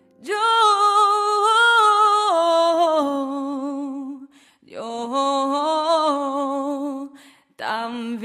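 A female singer holding long sung notes with no accompaniment, in three phrases with short breaks between; the first steps down in pitch about two seconds in.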